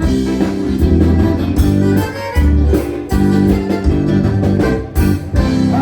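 Live gaucho dance band playing an instrumental passage of an old-style chote (schottische), led by a diatonic button accordion over guitar chords and a steady bass beat.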